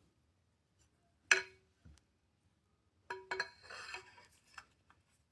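Metal parts of a Tac 9 pistol clinking and scraping as its bolt is picked up and fitted to the upper receiver: one sharp, briefly ringing clink about a second in, then a flurry of clinks and sliding metal around three to four and a half seconds.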